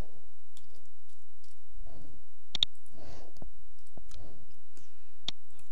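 Computer mouse clicks and keyboard key presses, scattered irregularly, with a sharp double click about two and a half seconds in.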